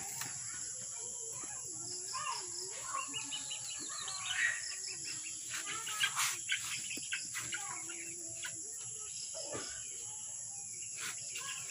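Insects droning steadily at a high pitch, with scattered bird chirps and a short sharp noise about six seconds in.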